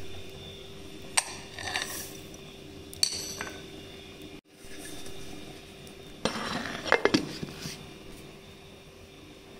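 Stainless steel mixer jar being handled: sharp metallic clinks in the first seconds as sesame seeds go in on top of roasted chickpeas, then a longer rattling clatter of metal past the middle.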